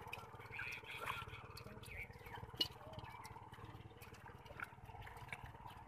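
Faint wet squelching and small clicks from hands picking small fish out of shallow mud, with one sharper tap about halfway through.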